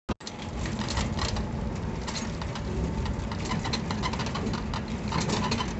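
Auto-rickshaw on the move: a steady low rumble with many small rattles and clicks.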